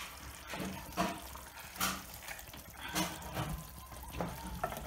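Wooden spatula levering a rohu fish head upright in a pot of thick simmering moong dal: a handful of irregular wet squelches and slaps, with the spatula scraping against the pot.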